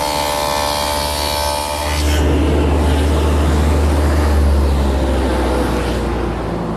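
Table saw with a stacked dado head cutting a dado in plywood: a steady motor whine with cutting noise. About two seconds in, the sound turns duller and lower.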